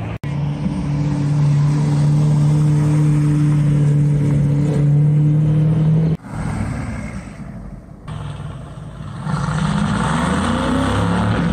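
Mercedes-AMG GT V8 engine and exhaust: for about six seconds it runs loud at steady revs with an even drone. After a break, an AMG GT engine comes in about nine seconds in and rises in pitch as the car accelerates away.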